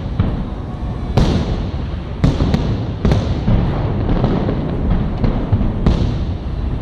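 Fireworks salute shells bursting overhead: several sharp bangs, each trailing off in an echo, over a steady low rumble.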